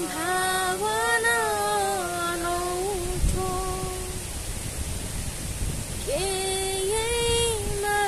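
A woman singing long held notes, a phrase of about three seconds at the start and another of about two seconds near the end, with a softer held note in between.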